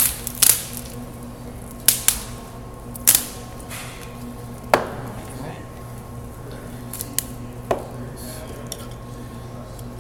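Lamb bones cracking and snapping as the carcass is broken apart: several sharp cracks at irregular intervals, the loudest in the first half.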